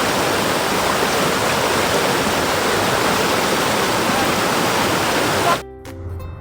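Rushing water of a stream, a loud, steady rush that cuts off abruptly near the end, where background music takes over.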